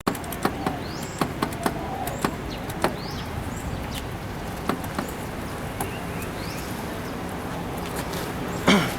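Irregular small metallic clicks and taps of a locksmith's tool working a Volvo V50's car door lock, with birds chirping in the background. One louder thump comes near the end.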